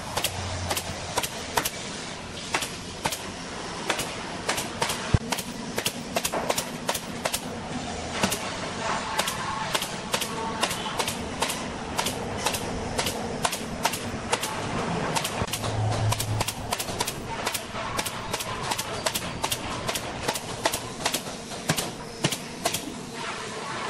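Pneumatic nail gun firing nails into the wooden slats of a cable reel: sharp shots in quick, irregular succession, two or three a second.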